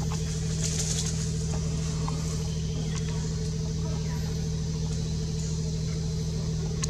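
A motor running steadily: a low, even hum that does not change.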